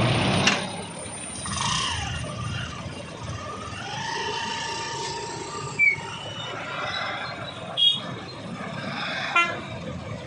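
Traffic of motorcycle and truck engines running, with a vehicle horn held for about a second and a half midway and a few short sharp sounds later on.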